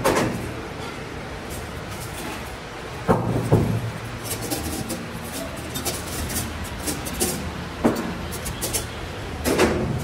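Steel wire grid panels and rods clanking and scraping against each other as they are handled on a concrete workbench: a couple of sharp ringing clanks about three seconds in, more near the end, over a low steady hum.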